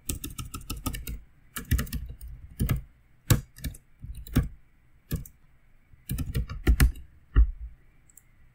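Typing on a computer keyboard: a quick run of keystrokes at first, then single keys and short bursts spaced out over the next several seconds.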